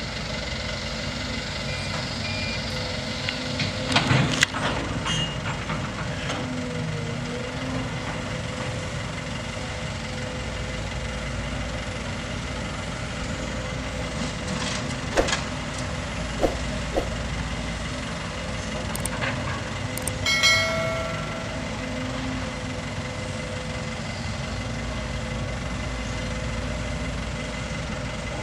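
Sumitomo SH210 long-reach excavator's diesel engine running steadily under load while it loads a dump truck, with a few sharp knocks as the bucket works. A short high-pitched tone sounds about two-thirds of the way in.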